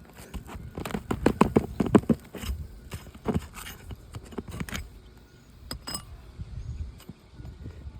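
A metal pry tool scraping and clicking under asphalt shingle tabs while nails are worked loose. A quick run of scrapes and clicks comes about a second in, followed by a few separate sharp knocks.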